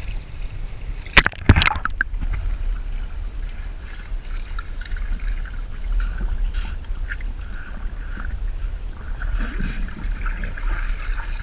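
Fast-flowing water rushing and sloshing, with two sharp knocks or splashes about a second and a half in.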